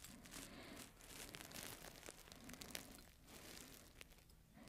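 Faint handling sounds: light clicks and rustling as small parts of a Briggs & Stratton Flo-Jet carburetor are fitted together by hand.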